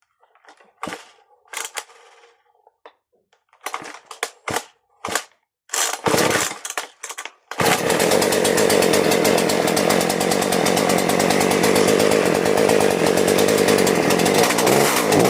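Husqvarna 236 two-stroke chainsaw being pull-started: several short bursts of cranking, then the engine catches about seven and a half seconds in and runs steadily and loudly.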